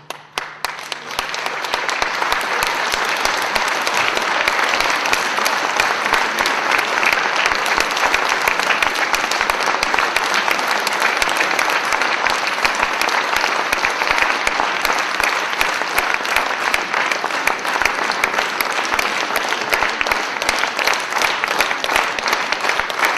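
Large audience applauding at the end of an orchestral piece, the clapping rising over the first couple of seconds as the last of the orchestra's final chord dies away, then holding steady.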